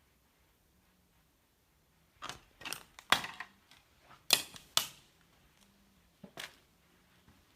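A quick series of about eight sharp clicks and clacks, starting about two seconds in and ending a little after six seconds, the loudest near the middle.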